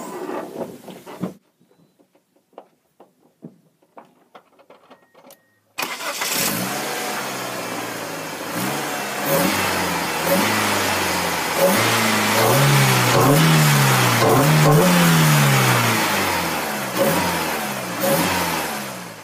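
A 1998 Mitsubishi Eclipse GS's 2.0-litre four-cylinder engine, with a cold air intake, heard from inside the engine bay. A few faint clicks come first, then the engine starts about six seconds in. It is revved up and down several times before the sound cuts off at the end.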